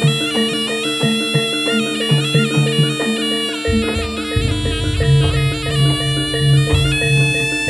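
Javanese jaranan music: a reedy shawm (slompret) plays a wavering melody over steady held gamelan tones. The low drumming drops back for a few seconds, then comes back in strongly about halfway through.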